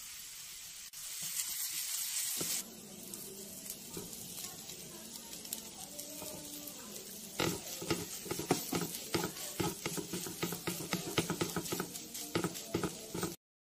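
A spatula stirring and scraping a chicken and vegetable filling in a non-stick frying pan, over a faint sizzle at first. From about halfway, quick repeated scrapes and knocks on the pan as mashed potato is mixed into the filling. The sound cuts off just before the end.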